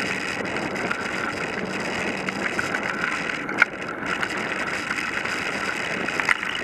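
Bicycle tyres rolling steadily over a gravel path, with a sharp knock about three and a half seconds in and a smaller one near the end.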